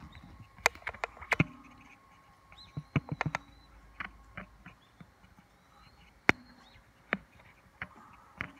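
Irregular sharp clicks and knocks of handling noise as a phone is fumbled against a zoom lens and a welding glass held up to it, a few close together about a second in and around three seconds in. Faint high bird chirps sound in the background.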